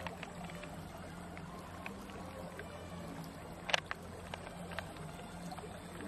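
Soft, faint handling sounds of fingers working through the wet flesh of a large freshwater mussel in its open shell, over a low steady hum; one sharp click a little under four seconds in.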